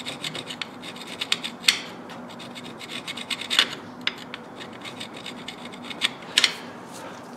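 A flat metal tool scraping old thread sealant off the rim of an engine's oil pressure switch port, in quick repeated strokes with a few louder scrapes, metal grating on metal.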